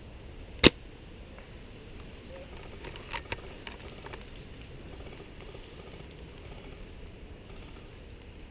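A single sharp, loud crack of an upgraded WELL MB01 (L96-type) spring-powered bolt-action airsoft sniper rifle firing, followed about two and a half seconds later by a few quieter clicks.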